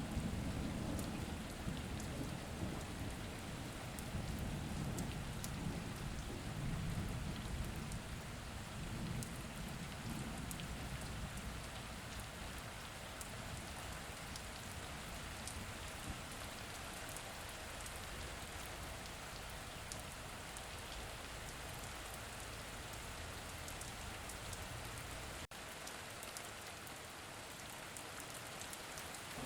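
Steady rain falling, with individual drops tapping, and a low rumble of distant thunder in the first half that fades away. The sound briefly cuts out about three-quarters of the way through.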